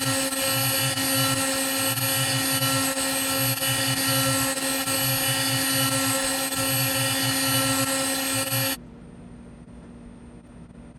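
CNC router spindle running at a steady high whine while cutting wood, with a low throb that pulses about once a second as the bit moves through its passes. The machine sound cuts off suddenly near the end.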